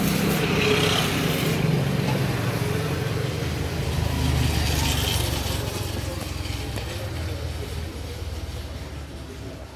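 Mahindra Yuvo 575 DI tractor's four-cylinder diesel engine running steadily, growing fainter over the last few seconds.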